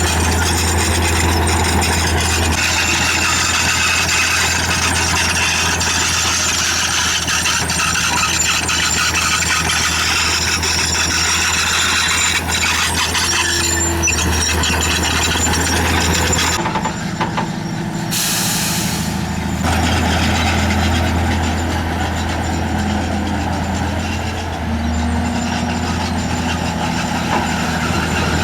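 Heavy diesel earthmoving machinery running steadily with a deep drone, and a short hiss of air about two-thirds of the way through.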